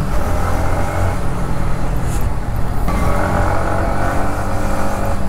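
Yamaha MT-15 motorcycle's single-cylinder engine running under way in traffic, with road and wind noise; the engine note grows stronger about three seconds in.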